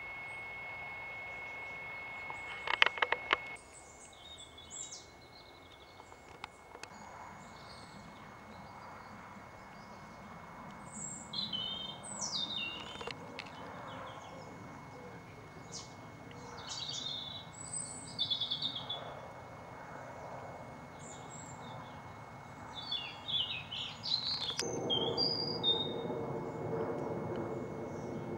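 Small birds chirping and singing, with short high calls and trills coming and going. A steady high tone with a few clicks opens the clip, and a low droning hum comes in near the end.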